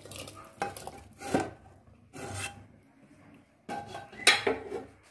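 Spoon scraping and clinking against a pan as chicken curry is scraped out of it into a pressure cooker. It comes as several separate scrapes and knocks, with the loudest clatter about four seconds in.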